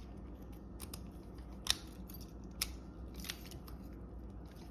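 Lock pick and tension wrench working in the keyway of a 4-pin galvanized padlock: light metal scraping with a few sharp, irregularly spaced clicks.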